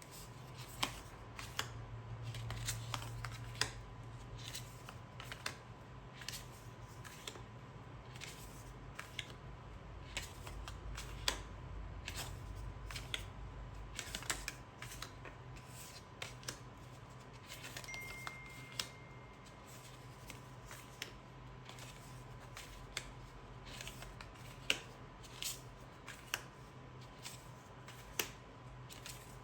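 Thick oracle cards being handled and flipped through one at a time, making irregular light clicks and snaps of card stock over a steady low hum.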